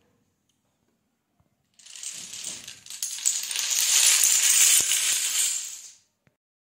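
Hundreds of small toy dominoes clattering onto a hard tiled floor as a falling line topples a tall stacked domino tower. The clatter starts about two seconds in, builds to a dense rattling cascade and stops abruptly about six seconds in.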